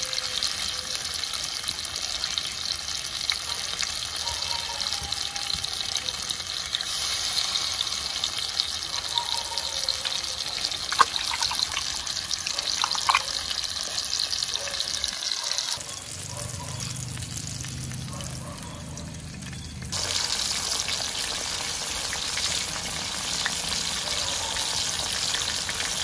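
Steady hissing with two light clicks, broken about two-thirds of the way through by about four seconds of a lower hum before the hissing returns.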